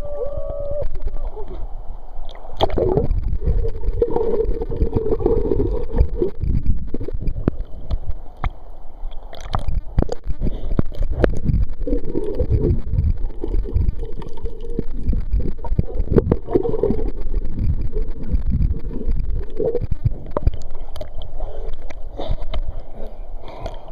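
Sea water sloshing and gurgling against a waterproof camera as it dips in and out of the surface, with a heavy low rumble and many irregular splashes and knocks.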